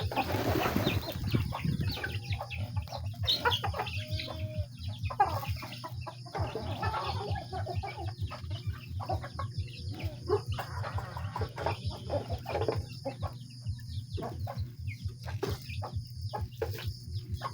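A flock of chickens clucking, with many short calls overlapping throughout. A steady low hum runs underneath.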